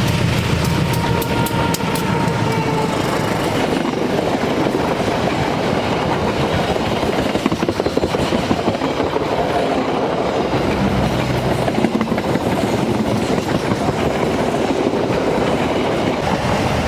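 Train passing close by at speed: a loud, continuous rush of steel wheels on the rails with clickety-clack over the rail joints.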